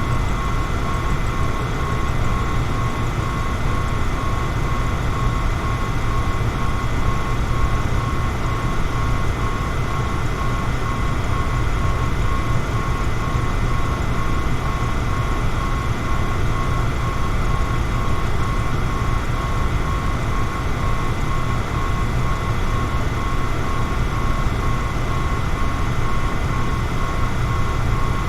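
Electric fan running steadily: an even whoosh of moving air over a low hum, with a faint steady whine on top.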